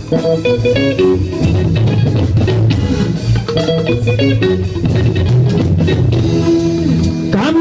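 Instrumental band music led by plucked guitar lines over a bass guitar and drum kit.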